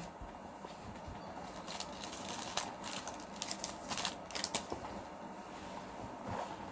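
Scattered light clicks and rustles of things being handled and moved about, a few sharp ticks clustered around the middle, over faint room background.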